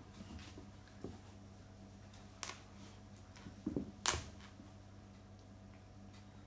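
Kitten and Alaskan Malamute play-wrestling on a wood-effect floor: a few short soft scuffs and taps of paws and bodies, the loudest about four seconds in, over a faint steady hum.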